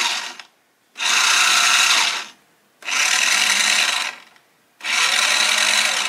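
Electric drive motors and gearing of a 49 MHz remote-controlled two-wheeled toy car whirring as its wheels spin, in bursts of about a second and a half, one every two seconds or so. Each burst is the toy responding to a valid remote-control command code.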